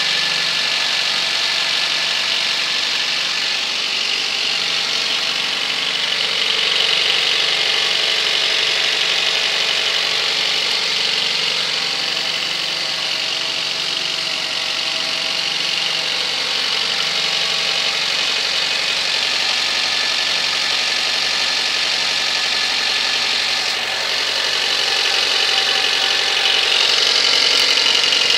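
Honda Civic engine idling cold, running steadily with a slight swell in level a couple of times.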